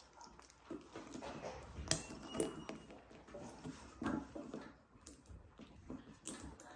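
Light handling of a handbag's leather shoulder strap and its metal clasps: scattered small clinks and rustles, with a sharper click about two seconds in and another about four seconds in.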